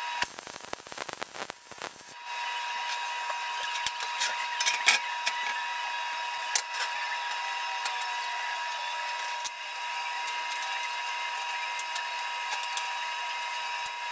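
A steady whirring hum, like a small motor or fan running, with a few sharp clicks about five, six and a half and nine and a half seconds in.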